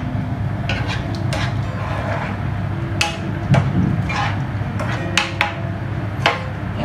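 A spatula clicking and knocking against a frying pan while stirring a creamy sauce, in a dozen or so irregular taps, over a steady low hum.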